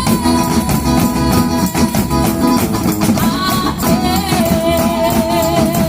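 Live worship band playing a Brazilian gospel song: a singer holds one long note, then a second, lower one with vibrato about four seconds in, over steady rhythmic accompaniment.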